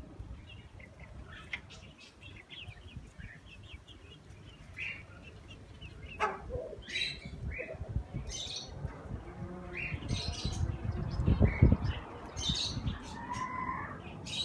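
Chickens in a pen: short high chirps and calls, with wing flapping. A louder low rumble swells about eleven seconds in.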